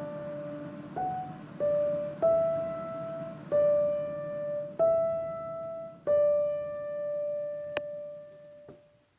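Background piano music: a slow melody of single notes, each struck and left to ring and decay, dying away just before the end.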